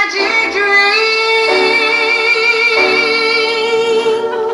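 A woman singing one long held note with a slight vibrato, which breaks off near the end.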